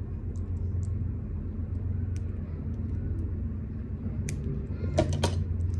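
A steady low rumble underneath a few short, faint clicks: small scissors snipping the excess string off a beaded bracelet next to its knot, and the beads clicking in the hands.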